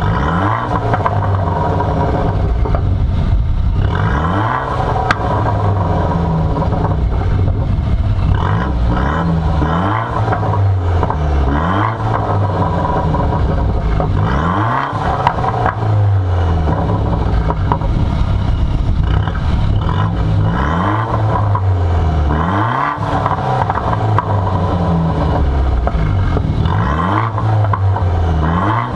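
Straight-piped, stage 1-tuned BMW 1 Series exhaust, the engine free-revved while the car stands still. The revs rise sharply and fall back every few seconds, about eight times, with the engine running between the blips.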